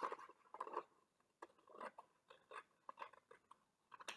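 Scissors snipping through a folded strip of construction paper: a faint series of short, crisp cuts, about a dozen.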